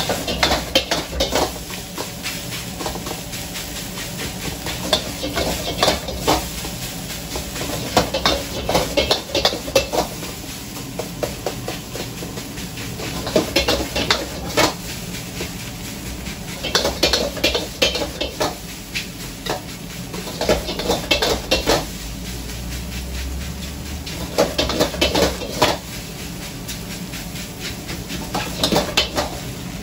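Metal ladle scraping and clanking against a wok in quick rhythmic bursts every few seconds as fried rice is stir-fried and tossed over high heat. Under it run the sizzle of the rice and the steady low rush of the gas wok burner.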